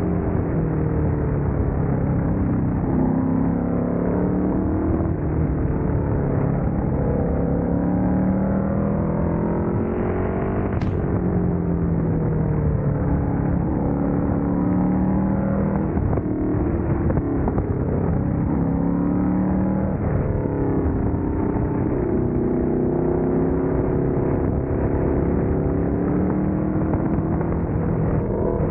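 Small engine of a minibike being ridden, its pitch rising and falling again and again as the throttle is worked, over a steady rush of wind noise.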